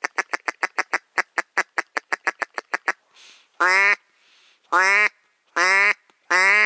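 Hunter's duck call blown in a fast run of short clucks, about six a second, for about three seconds, then four loud, drawn-out quacks, calling ducks in to the decoys.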